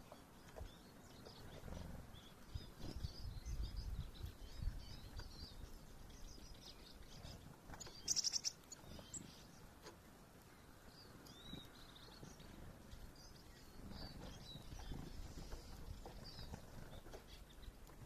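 Small songbirds chirping and calling softly, with a short, loud burst of rapid clicking chirps about eight seconds in. Soft low rustling runs underneath, stronger near the start and near the end.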